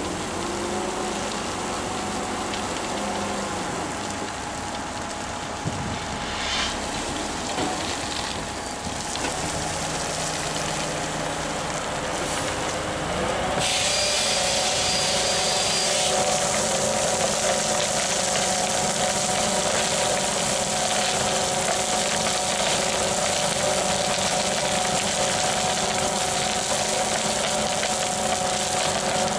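Belt-conveyor dump trailer unloading soil and gravel off its rear belt: a steady machine hum from the running truck and conveyor drive, with the rush of material pouring off the end. About halfway through, the sound jumps abruptly louder and brighter.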